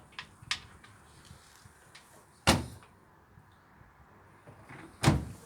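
Two loud knocks about two and a half seconds apart, each with a short fading tail, after a few light clicks.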